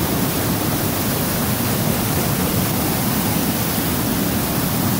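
Rain-swollen waterfall and stream rushing over rock: a loud, steady rush.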